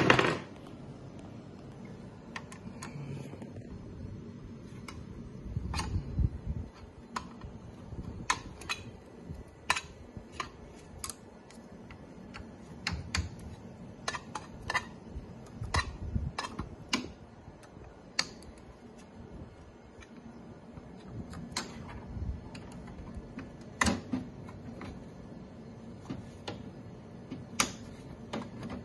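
Irregular light clicks and taps of a screwdriver working on small screws and metal mounting parts, as a motor is unfastened from an analyzer's mixer assembly. There is a louder knock right at the start.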